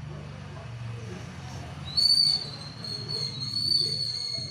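A high, steady whistling tone starts sharply about two seconds in and holds for nearly three seconds, loudest at its onset, over a low steady hum.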